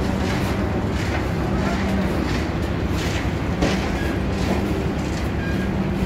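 Construction machinery engine running steadily with a low drone and a hum that comes and goes, with a few light knocks over it.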